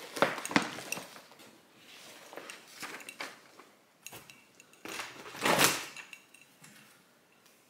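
Handling noises from a zip-up vinyl project bag and a paper chart being picked up and moved: sharp clicks and knocks at the start, then a louder rustle lasting about a second, a little after five seconds in.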